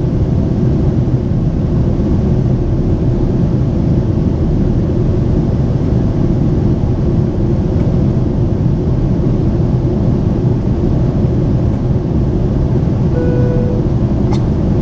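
Steady, loud cabin rumble of a Boeing 767-400ER airliner in flight after takeoff: engine and airflow noise heard from a window seat. Near the end a single short chime tone sounds, and a faint click follows just after it.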